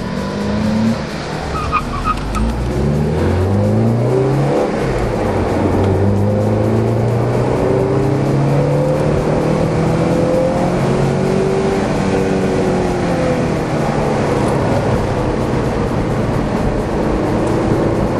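Porsche 968 engine running hard through an autocross cone course, its pitch repeatedly climbing under acceleration and dropping as the driver lifts off or shifts. Near the start there is a brief tyre squeal.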